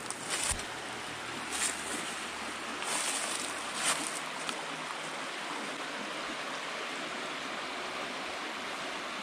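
Small creek rushing over shallow sandy riffles, a steady hiss of running water. A few brief crackles stand out in the first four seconds.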